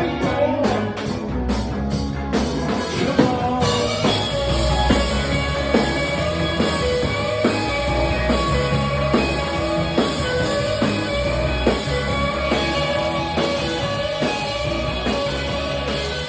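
Live rock band playing: a drum kit keeping a steady beat under guitar and a singing voice.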